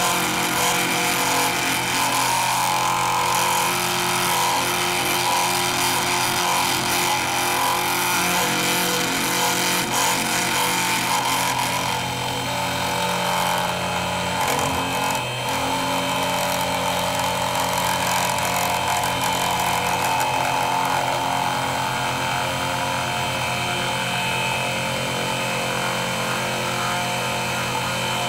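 Milling machine running steadily: an even motor hum with a steady whine, changing slightly in tone about twelve seconds in.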